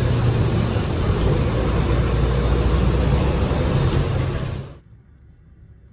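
City bus in motion, heard from inside the passenger cabin: a steady engine and road rumble that cuts off abruptly near the end.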